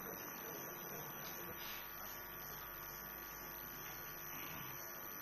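Quiet room tone: a steady electrical hum with faint, indistinct background sounds.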